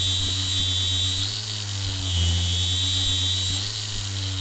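Variable-speed angle grinder running with no load, a steady high whine over a low hum. The pitch shifts twice as its speed setting is changed.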